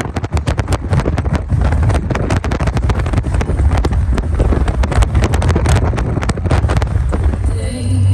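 Wind buffeting the microphone: a heavy low rumble with rapid, irregular crackling gusts.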